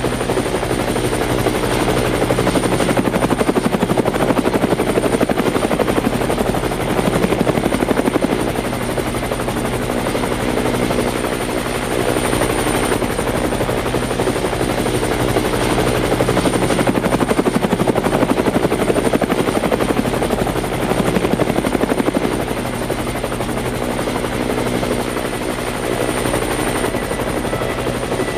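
Helicopter running: a steady, rapid rotor-blade chop with a thin, high steady whine above it.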